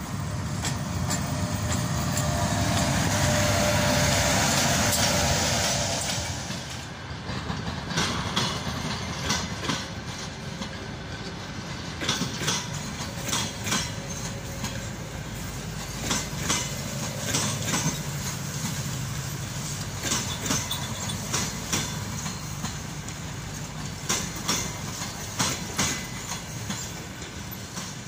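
An EP1M electric locomotive passes with a loud steady rush and hum for the first several seconds, then its passenger coaches roll by at low speed, the wheels knocking over rail joints in a clickety-clack every second or so.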